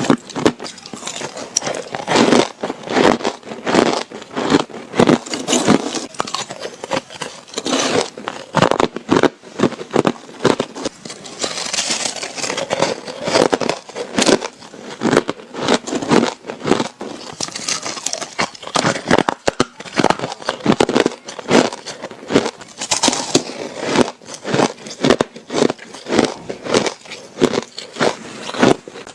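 Ice being bitten and chewed: a continuous run of crisp cracks and crunches, many a second, with no pause.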